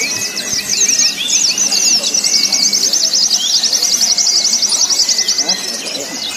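Many white-eyes (pleci) singing at once, as at a songbird contest: a dense tangle of high chirps and twittering. From about two seconds in, one bird holds a fast, even trill of roughly a dozen notes a second for over three seconds, all over a low background murmur.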